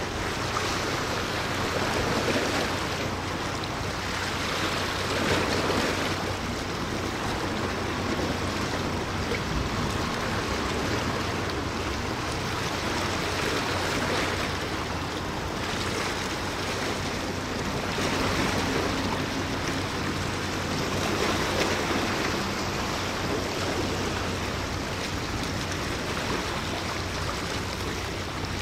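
Wind and water noise, a rushing that swells and eases every few seconds, over a low steady hum.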